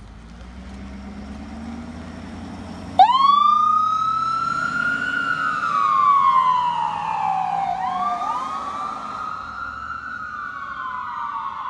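Ambulance engine running, then about three seconds in the ambulance's siren switches on, sounding a slow wail that climbs, falls over several seconds, and climbs again near the end.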